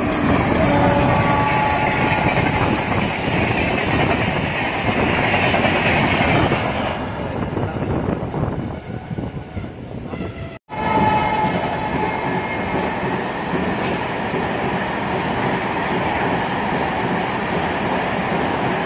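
Express train hauled by a WAP-7 electric locomotive passing at speed: coach wheels clattering over the rails over a heavy rumble. The sound thins about eight seconds in, cuts out briefly, then resumes steady.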